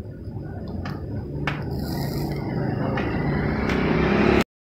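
Satay skewers grilling over a charcoal fire: a noisy sizzling hiss that grows steadily louder, with a few sharp crackles, and cuts off suddenly near the end.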